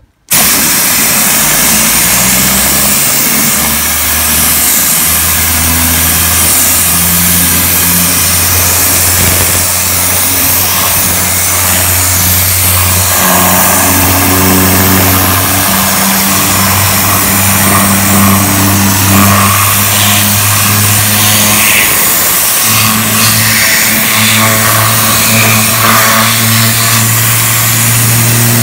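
Griot's Garage Air Pulse compressed-air gun blasting air steadily, a loud continuous hiss as it blows water off a freshly steam-cleaned wheel well, with a low hum underneath that shifts in pitch.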